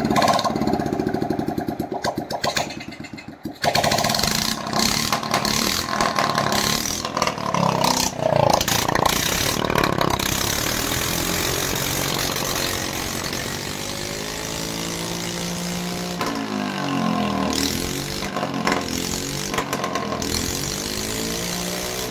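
Salvaged LML scooter engine, freshly started on a homemade cultivator frame, running. It dips briefly about three and a half seconds in, then runs on, revved up and down several times.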